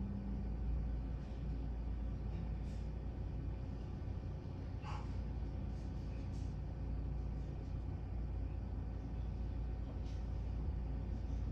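Steady low background hum of room and equipment noise, with a few faint clicks and a brief soft sound about five seconds in.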